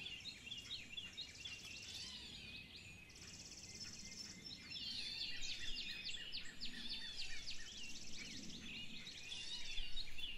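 Birds chirping and singing together, a dense chorus of many short, overlapping high notes over faint outdoor background noise.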